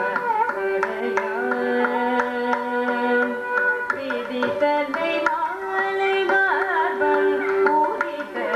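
Carnatic music: a woman's voice and a violin hold notes and slide between them over steady mridangam drum strokes.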